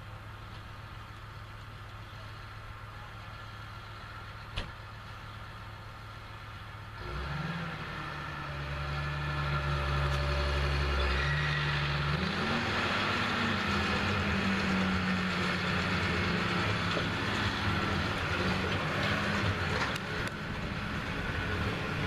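Tractor engine running low and steady, then opening up about seven seconds in and rising in pitch again a few seconds later, running loud and steady after that.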